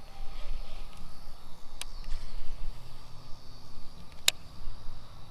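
Outdoor ambience: a low rumble and a faint steady high drone of insects, broken by two sharp clicks about two and a half seconds apart.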